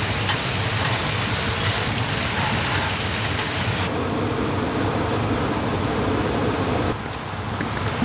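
Mountain stream water rushing over rocks: a steady, even rush whose tone shifts twice.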